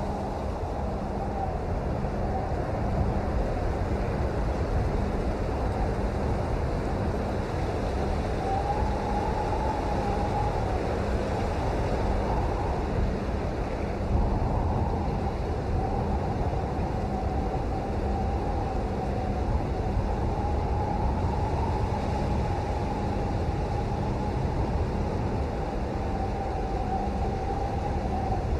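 Steady heavy rain, a dense even rushing noise strongest at the low end, with a faint wavering tone running under it.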